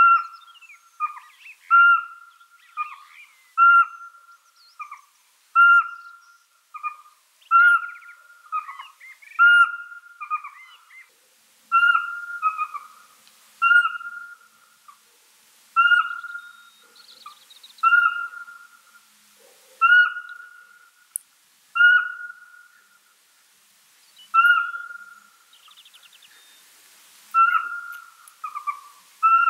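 Pygmy owl calling: a long series of clear whistled notes. They come about once a second at first, then slow to about one every two seconds, and many notes drop slightly at the end.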